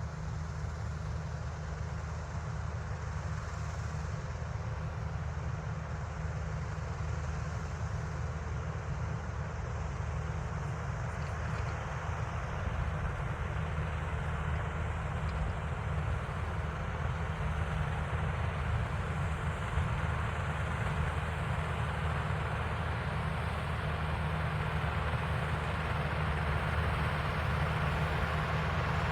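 Tractor engine running steadily under load, with a rotary tiller working, getting slowly louder over the stretch.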